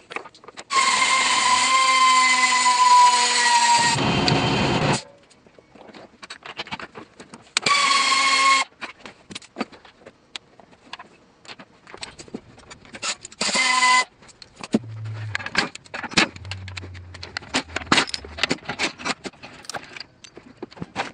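Cordless impact wrench running on a bolt in three bursts: a steady whine of about four seconds that sags slightly in pitch and ends in about a second of hammering, then two short bursts. Scattered metal clicks and clinks follow.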